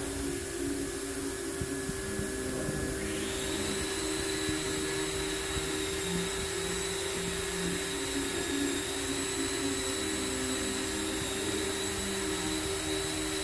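Steady noise of a running motor-driven machine, with a low hum and a high whine that sets in about three seconds in and holds.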